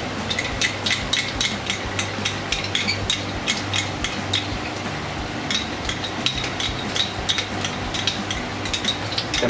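Hot oil in a frying pan crackling and popping with many sharp, irregular pops as sauce is poured onto frying capsicum, with a short lull near the middle. A steady low hum runs underneath.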